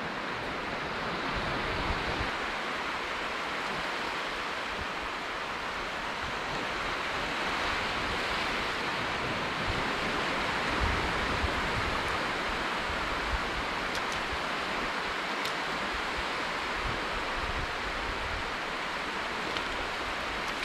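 Steady rushing wash of surf breaking on a sandy beach, with low wind buffeting on the microphone now and then.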